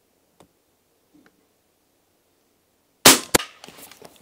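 Suppressed shot from a De Lisle carbine firing subsonic .45 ACP: a short sharp report about three seconds in, followed about a third of a second later by a second sharp knock, the bullet striking the wooden target board at 50 yards. A couple of faint clicks come before the shot.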